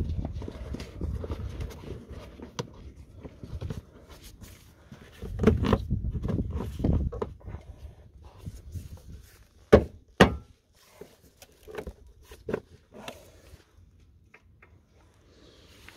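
Dacia Logan's plastic wheel-arch liner being handled and pushed back into place: scraping and rustling, two sharp knocks close together partway through, then a few light clicks.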